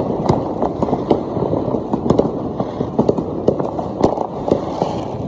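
Fireworks going off: a dense, continuous barrage of overlapping bangs and pops, with sharper cracks standing out several times a second over a steady din of more distant explosions.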